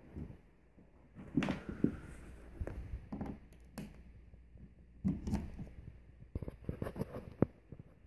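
Scattered thuds and sharp plastic clicks from a central vacuum hose and its fittings being handled, with one loud click near the end; the vacuum motor is not running.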